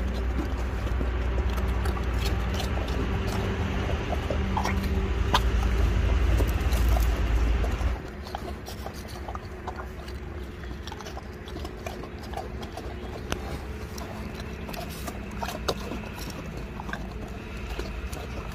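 Sloth bears eating biscuits off a tiled floor: scattered crunching and sharp clicks of teeth on biscuit and claws on tile. A low rumble under the first half stops abruptly about eight seconds in.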